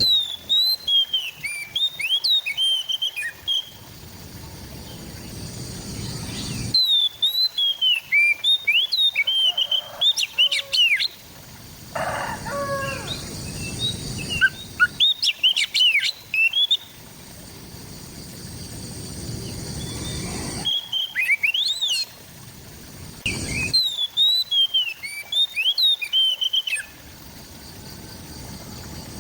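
Oriental magpie-robin (kacer) singing: phrases of clear whistles and quick rising and falling notes, in bursts of a few seconds with short pauses between them.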